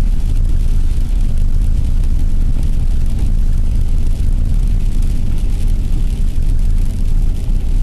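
Steady low rumble of a car driving, heard from inside the cabin: engine and tyre noise on a road of packed slush and ice.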